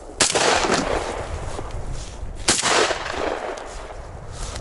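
Two shots from an MP-155 semi-automatic shotgun, about two seconds apart, each trailing off in a short echo.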